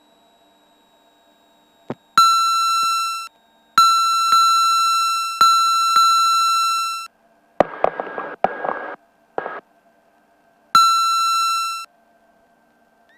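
Electronic warning tone in the cockpit headset audio: a loud, steady, high beep that sounds three times, the middle one about three seconds long, with short bursts of static in between.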